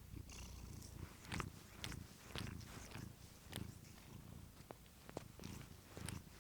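Domestic cat purring faintly, a steady low rumble, with a series of soft short clicks and rustles over it.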